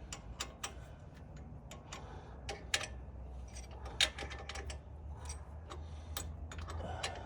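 Irregular sharp metallic clicks and clinks of hand tools and brake hardware being handled, over a faint steady low hum.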